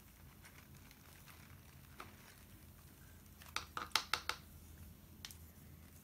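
Crumpled newspaper on a papier-mâché fish crinkling in a quick cluster of five or six crackles a little past the middle as it is handled, with a few faint single rustles around it over quiet room tone.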